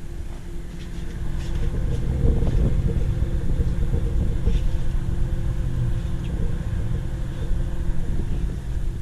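A motor-driven machine running steadily with a low hum, building up about a second in and easing off near the end.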